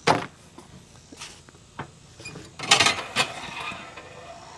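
Clunks and a rattling clatter as the fold-out spreader hopper on a Z Turf Z Spray Max is unlatched and swung out on its pivot: a sharp knock at the start, a few light clicks, then the loudest rattle a little past halfway.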